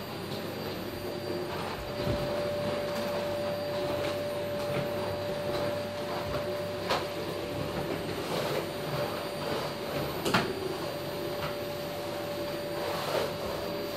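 Steady machine hum with a held tone that sets in about two seconds in, and a few sharp knocks, the loudest about ten seconds in.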